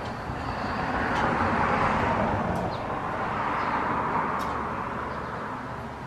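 A broad rushing noise that swells over the first two seconds and slowly fades towards the end, with a few faint clicks.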